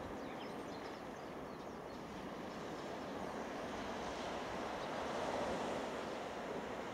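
Small waves washing onto a beach, a steady rushing that swells about five seconds in.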